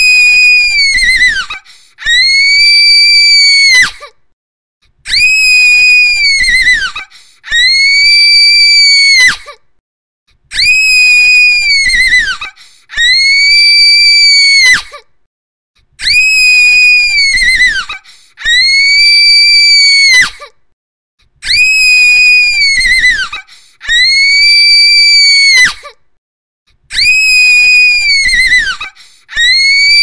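A female voice giving a shrill, high-pitched scream, each one held steady for about two seconds and dropping slightly at the end. The screams come in pairs about half a second apart, with a gap of about a second between pairs, so the pair repeats roughly every five and a half seconds.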